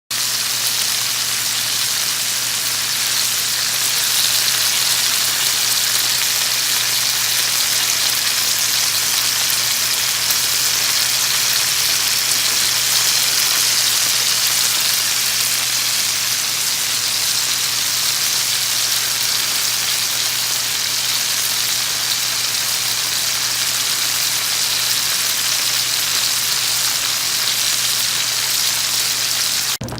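Chicken simmering in a pan of puttanesca tomato sauce, with a steady, dense sizzling crackle. A steady low hum runs underneath. The sound cuts off just before the end.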